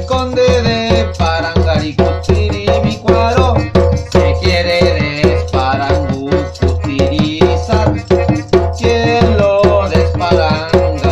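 Melodica playing a melody in held and moving reedy notes over a hand drum struck with the palms in a steady rhythm.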